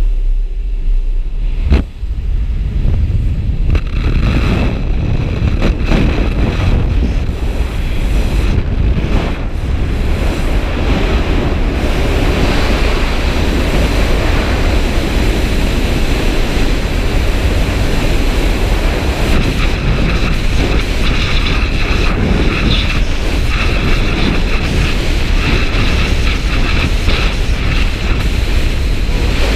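Open-door jump-plane cabin noise for about the first two seconds, broken by a sharp click. Then the freefall airstream: loud, steady wind noise buffeting the helmet camera's microphone.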